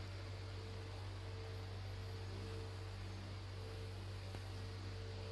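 Steady low electrical hum with an even hiss over it and a thin steady tone higher up: the background noise of the recording, with no music or voice.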